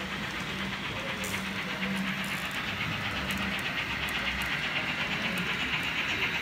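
Märklin H0 model of a DB class 75 steam tank locomotive running with its passenger coaches: a fast, even rhythm of clicking and hiss over a steady low hum.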